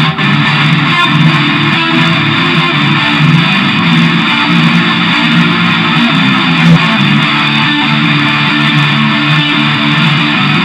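Instrumental passage of a progressive rock song, with guitar to the fore over the band, playing on steadily without vocals.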